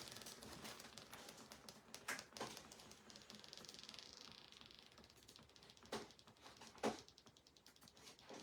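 Faint typing and clicking on a computer keyboard, with four sharper clicks, the loudest near the end.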